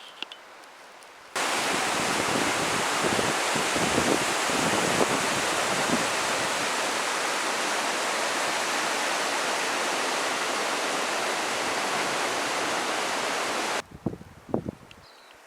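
Rushing water, a steady loud hiss that starts abruptly about a second in and cuts off sharply near the end, followed by a few faint rustles.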